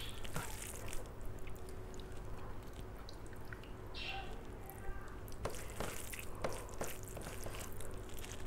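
Bare hand squeezing and mixing rice with mutton curry gravy on a steel plate: soft wet squishing and irregular small clicks, over a steady low hum.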